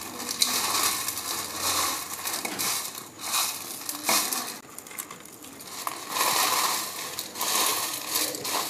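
Crisp fried besan sev (gram-flour noodle snack) crushed and broken by hand on a steel plate: dry crunching and crackling in several surges, quieter for a moment near the middle. The crunch shows the sev is fried properly crisp.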